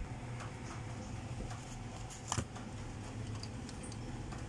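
Quiet workbench room tone: a steady low hum with a few faint ticks and one sharp click a little past halfway through.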